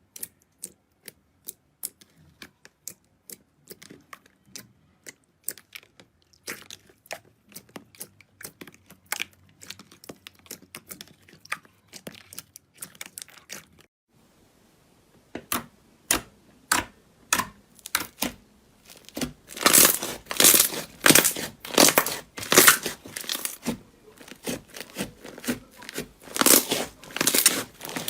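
Crisp crackling and crunching from a crunchy ASMR material being worked: first a run of sharp clicks and pops, then after a short pause louder rhythmic crunches, about two a second.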